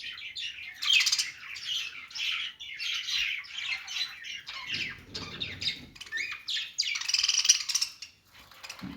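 Pet budgerigars chattering and warbling: a continuous run of rapid chirps and squawks, with a louder stretch about seven seconds in that drops off shortly before the end.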